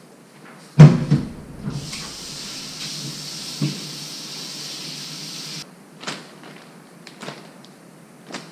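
A loud clank, then cold water running from a kitchen tap for about four seconds to rinse the cut mackerel, with a knock partway through; the water shuts off suddenly, followed by a few light knocks.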